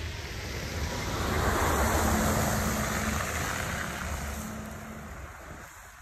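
A car driving past: tyre hiss and engine noise swell to a peak about two seconds in, then fade away.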